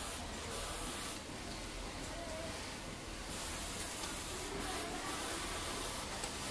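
Cloth rustling and rubbing in short stretches as fabric pieces are handled, over a steady hiss of workshop noise.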